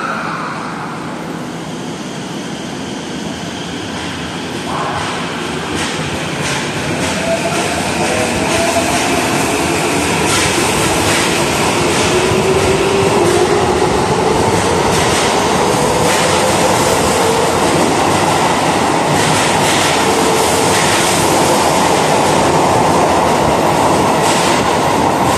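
Tokyo Metro 15000 series subway train pulling out and accelerating. From about five seconds in, its traction motors' inverter whine rises steadily in pitch. Wheels clack over the rail joints and grow louder as the cars pass.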